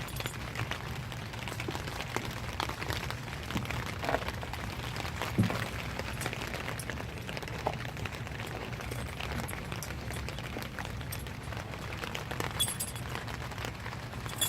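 Steady rain patter of many small scattered drop ticks over a low steady hum, with a single louder knock about five seconds in.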